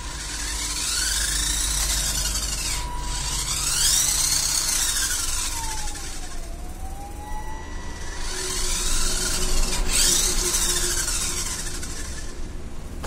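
Small electric gear motors of a homemade RC tractor whining as they speed up and slow down under joystick control, the pitch rising and then falling in four long sweeps with a hiss during each.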